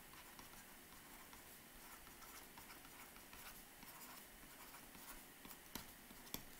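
Faint scratching and light taps of a stylus writing on a tablet surface, with two slightly sharper taps near the end.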